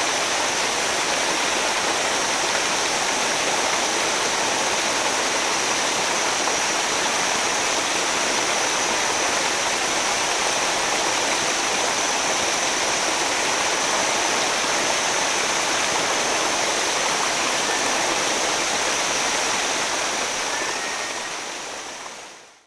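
Waterfall rushing: a steady, even roar of falling water that fades out over the last couple of seconds.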